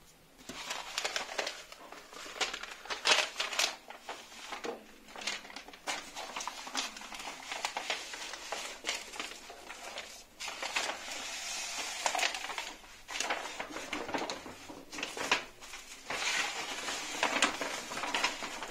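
Brown kraft wrapping paper rustling and crinkling in irregular bursts as it is unfolded by hand.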